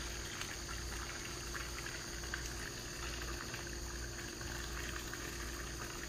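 Microwave oven running with a steady hum and a constant faint crackling, an iPhone 6 burning and sparking inside it.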